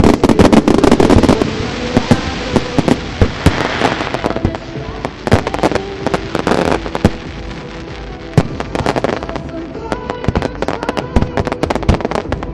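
Aerial fireworks bursting in a rapid string of bangs and crackles, densest in the first second and a half, thinning in the middle and picking up again near the end.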